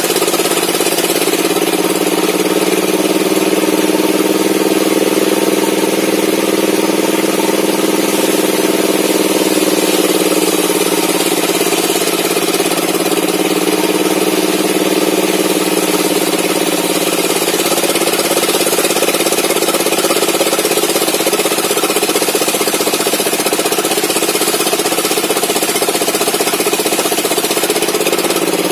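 Homemade table saw ripping a length of old mahogany, its motor droning steadily under load. The pitch sags and recovers a little as the blade works through the cut.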